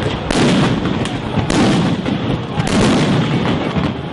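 Chaotic field audio of a street clash: repeated bangs of police crowd-control weapons (tear-gas and stun-grenade blasts) over a loud noisy din. The sound changes abruptly about every second as the footage cuts between clips.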